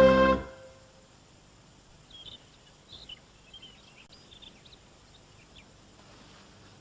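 A music cue ends in the first half second, then small birds chirp faintly in short, scattered calls from about two seconds in.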